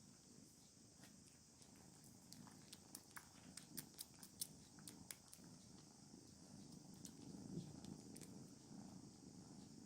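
Cat purring faintly: a low, fluttering rumble that swells about three-quarters of the way through, with scattered small clicks over it.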